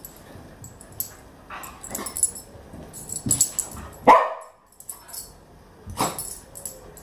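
Working cocker spaniel barking several times, the loudest a single sharp bark about four seconds in that drops in pitch, with another near the end.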